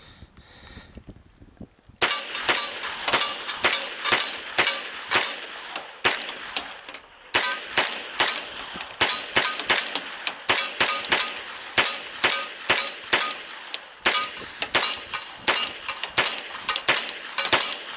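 SIG MPX firing a long string of rapid, evenly paced shots, about three a second, each with a metallic ring from the steel target being hit. The shooting begins about two seconds in and pauses briefly near the middle.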